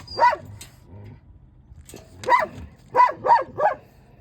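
Karelian bear dog barking in short barks: one at the start, then four in quick succession about two seconds in.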